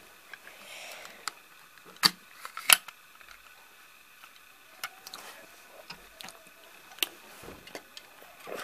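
Plastic clicks and taps from a toy flatbed truck's bed being tilted down by hand. There are a handful of sharp clicks, the loudest about two and two and a half seconds in and another about seven seconds in.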